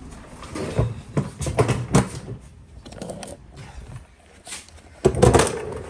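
Irregular handling knocks and scrapes, a run of them in the first couple of seconds and a louder cluster about five seconds in, as the camera is picked up and moved over a concrete garage floor.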